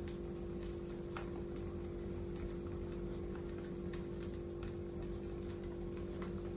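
Wood fire crackling in an open fireplace, a wooden fruit crate catching alight over fire-starter gel: scattered sharp pops and snaps at irregular intervals over a steady low hum.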